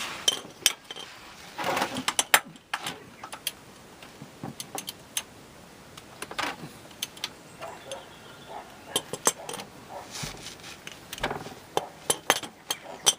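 Socket wrench on the oil sump drain plug: irregular metallic clicks, clinks and knocks as the tool is fitted and the plug is loosened.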